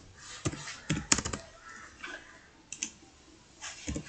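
Typing on a computer keyboard: a few short runs of key clicks with brief pauses between them.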